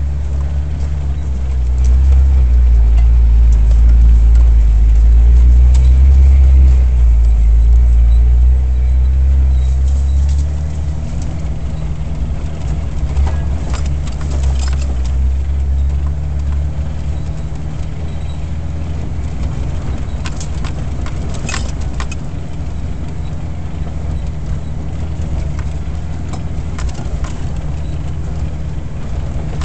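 Jeep Wrangler driving slowly off-road over dirt, heard from inside the cab: a steady low engine and road rumble, louder for the first ten seconds or so, then settling lower. In the middle there are scattered rattles and clicks as the Jeep bumps over the ground.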